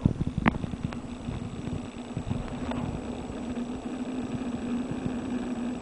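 Desktop computer hard drive running in a Dell Dimension tower: a steady hum with irregular clicks and knocks, thickest in the first second.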